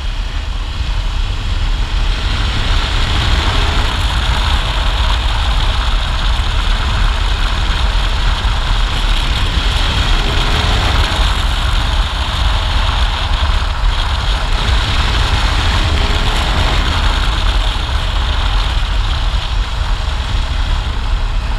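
Motorcycle riding at road speed: a steady rush of wind on the microphone over the engine running evenly, with no gear changes or revving.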